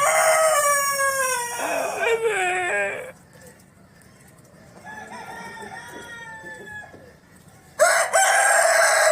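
Domestic roosters crowing: a loud, drawn-out crow over the first three seconds, fainter crowing in the middle, and another loud crow beginning near the end.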